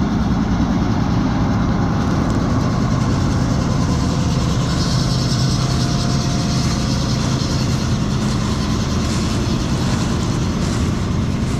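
Combine harvester running steadily, a loud, even mechanical rumble of engine and machinery.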